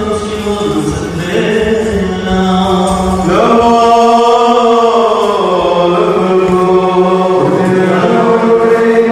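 Syriac Orthodox liturgical chant sung by a cleric into a microphone: a slow melody of long held notes that slide between pitches, with a quick upward swoop about three seconds in.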